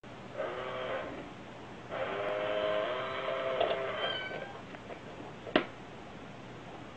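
Two cat meows, a short one and then a longer drawn-out one lasting about two seconds, followed about five and a half seconds in by a single sharp click.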